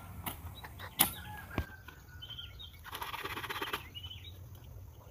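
Domestic fowl sounds: a rapid rattling call or flapping lasting about a second near the middle, with short high chirps around it. A few sharp knocks come in the first two seconds.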